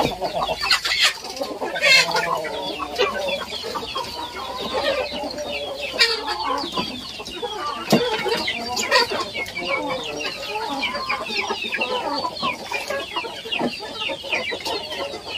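A flock of Indonesian village chickens (ayam kampung) clucking and chattering around their feed, with a busy layer of short high cheeps throughout and a few sharp knocks.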